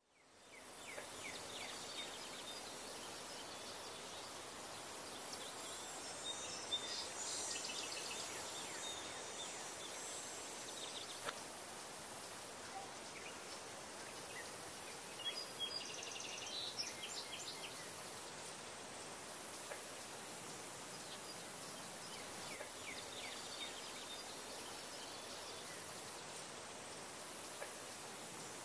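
Quiet outdoor ambience: a steady hiss with a faint high constant buzz, and a few brief bursts of faint chirping.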